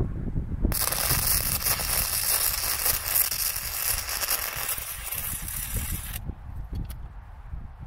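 Stick (SMAW) welding arc crackling steadily as a steel bracket is welded onto the harrow's steel frame. The arc strikes about a second in, runs for about five seconds, then breaks off suddenly, followed by a few brief crackles near the end.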